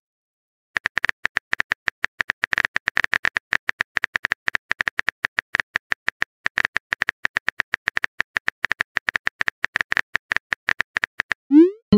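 Texting-app keyboard typing sound effect: a rapid, irregular run of light clicks, several a second, that stops near the end and gives way to a short rising swoosh as the message is sent.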